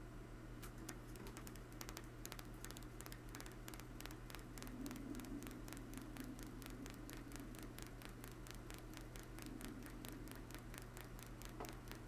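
Homemade rotary switch turning on a fresh battery: its rotor contact clicks each time it strikes one of the hard-drive bearing rollers and pulses the coils. The clicks start sparse and uneven and quicken into a steady run of about four to five a second as the rotor speeds up.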